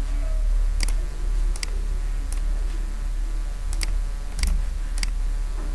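Computer mouse clicking: about half a dozen sharp, unevenly spaced clicks over a steady low electrical hum.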